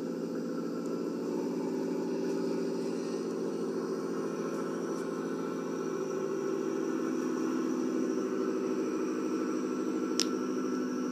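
Stage 2-tuned Subaru WRX engine idling steadily at an even pitch, with a single sharp click about ten seconds in.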